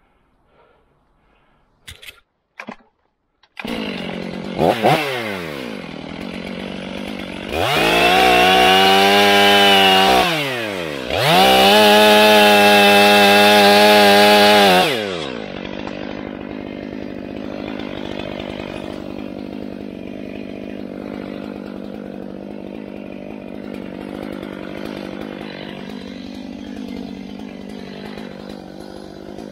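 Stihl MS500i fuel-injected two-stroke chainsaw: a few clicks, then the engine catches about three and a half seconds in and idles with one short rev. It then runs at full throttle twice, about three seconds each, cutting through a fallen trunk, and drops back to a steady idle for the rest of the time.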